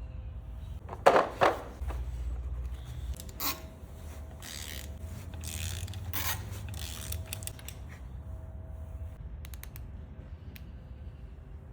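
Metal tools and parts being handled, with two sharp knocks about a second in followed by scattered clicks and scrapes, over a steady low hum.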